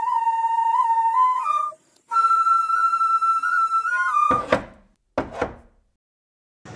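Solo flute playing a slow melody of long held notes, with a brief pause about two seconds in, until it stops about four seconds in. Then come two sharp knocks under a second apart as the doors of a wooden-cabinet television are pulled open.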